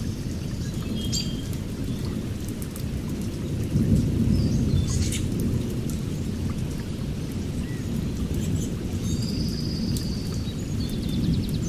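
Rainstorm ambience: a dense, deep rumbling noise with a steady rain texture. Short bird chirps sound high above it, mostly near the end.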